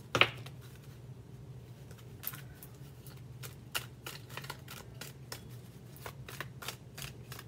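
Deck of oracle cards being shuffled by hand: a run of short card clicks and flicks that come thicker and faster near the end, over a low steady hum.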